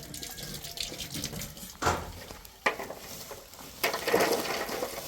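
Kitchen pots and utensils clattering and scraping, with two sharp knocks about two and nearly three seconds in, then a louder stretch of scraping and rattling near the end.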